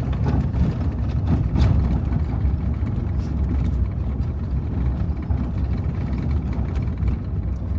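Steady low rumble of a vehicle driving on a dirt road, engine and tyre noise heard from inside the cabin, with a few faint knocks and rattles.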